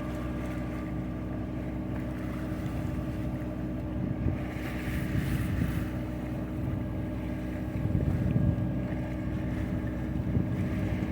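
Boat engine running steadily at an even speed, with some wind noise on the microphone.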